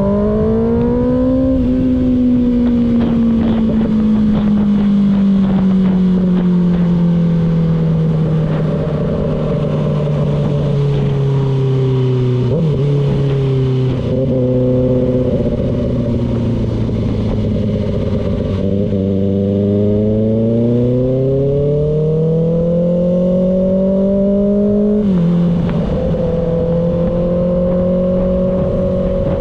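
Kawasaki ZX-6R sport bike's inline-four engine being ridden, with wind rushing past. The engine note rises briefly at first, then falls slowly for about ten seconds and runs low, climbs again from about twenty seconds in, drops suddenly near twenty-five seconds as it shifts up, and then holds steady.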